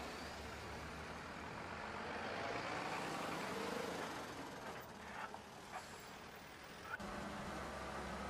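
Fire engines driving past on a road, their engine and tyre noise swelling and then fading. About seven seconds in it cuts to the steady low running of a Caterpillar wheel loader's diesel engine.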